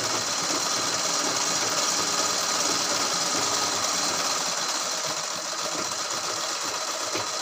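Pico sewing machine running steadily, stitching along the edge of the cloth. It is set to number 2 for the small fall stitch.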